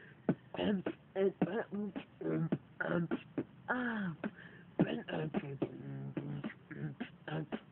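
Dubstep-style beatboxing by one young male voice: fast mouth-made kick, snare and click strokes mixed with pitched bass sounds that bend up and down. About four seconds in comes a long falling sweep in pitch.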